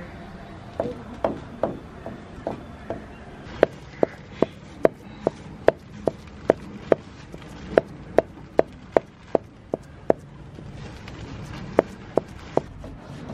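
Heavy knife chopping raw meat on a round wooden chopping block, hand-mincing it for momo filling. Sharp wooden chops, softer and uneven at first, then a steady beat of about two to three a second, with a short pause about ten seconds in before a few more.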